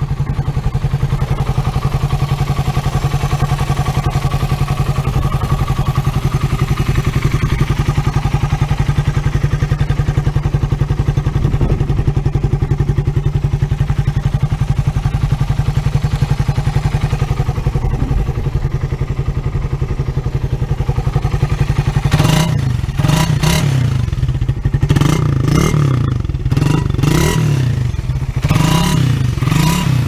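Suzuki Raider 150 single-cylinder four-stroke engine breathing through a big-elbow Tsukigi header and stock muffler. It idles steadily, then from about 22 seconds in it is revved in a quick series of throttle blips, each rising and falling in pitch.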